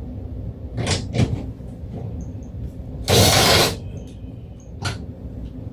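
Mounting bolts being tightened with a ratchet wrench: a few separate clicks, then a loud burst of rapid ratcheting for about half a second just past the middle.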